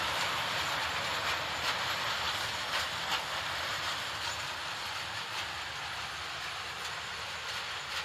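Freight train rolling past, its wheels clacking irregularly over rail joints under a steady rumble, slowly fading.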